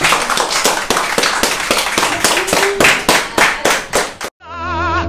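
A small group of people clapping their hands, a dense, uneven patter that cuts off suddenly about four seconds in. Upbeat music starts right after.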